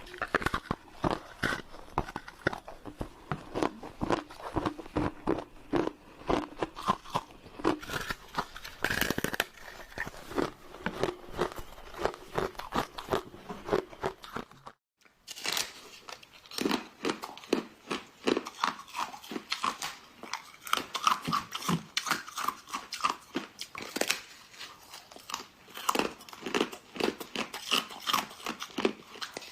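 Close-miked biting and chewing of frozen snow foam: a dense run of crisp crunches, broken by a short gap about halfway through.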